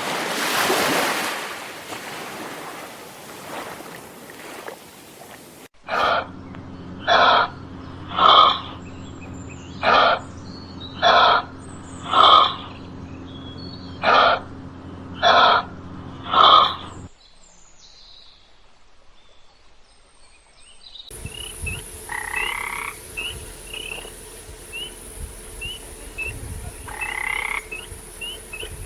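A frog croaking: about ten short, evenly spaced calls a little over a second apart, coming after a stretch of steady rushing noise. Near the end there is a quieter passage of small chirps over a high steady hiss.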